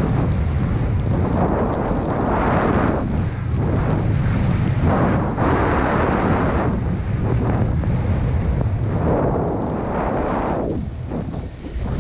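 Rushing wind noise on an action-camera microphone mixed with a snowboard hissing through deep powder, surging and easing every second or two as the board turns.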